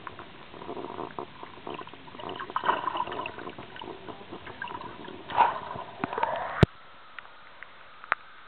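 Muffled gurgling and scattered clicks of water heard with the microphone under the lake surface. The sound ends suddenly with a sharp click about six and a half seconds in as the camera comes out of the water, leaving a faint steady hush.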